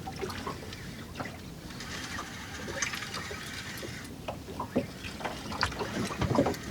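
Water slapping against the hull of a small drifting fishing boat, with irregular small clicks and knocks of fishing tackle that get busier in the second half.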